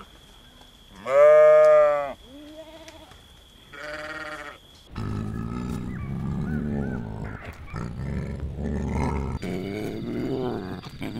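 A wild sheep bleats: one loud call that rises then falls in pitch, then two shorter, weaker bleats. From about five seconds in, a tiger growls in a deep, steady rumble.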